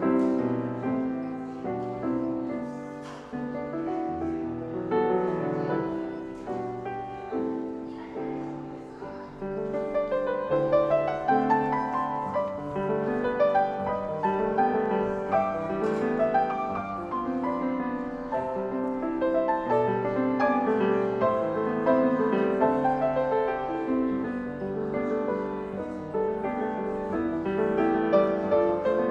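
Piano playing slow, classical-style music, getting louder and fuller about ten seconds in.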